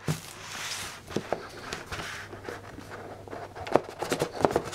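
Cardboard hockey-card box being handled and its lid opened on a table: a soft rustle at first, then scattered light taps and scrapes, most of them near the end.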